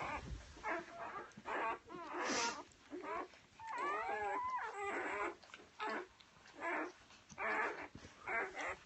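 Newborn golden retriever puppies whimpering and squeaking as they nurse: a string of short, wavering cries, about two a second.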